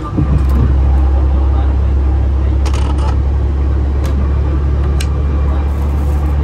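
Diesel railcar engine of a KTR 8000 series train running under power: a steady low drone that jumps louder just after the start and holds. A few light clicks and knocks come from a wooden seat-back tray being folded up and latched.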